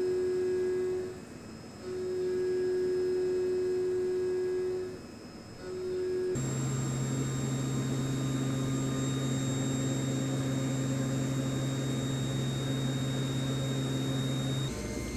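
CNC milling machine's end mill cutting 17-4 PH stainless steel under flood coolant, making a steady humming tone. The tone breaks off briefly twice in the first half, then switches abruptly to a lower steady hum about six seconds in.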